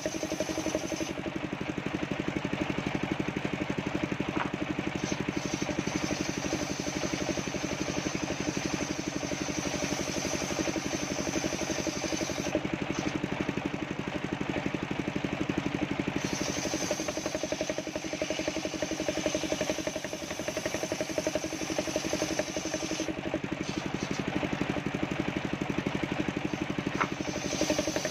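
Homemade circular sawmill running steadily, its engine driving the blade as it rips coconut-wood planks fed through by hand.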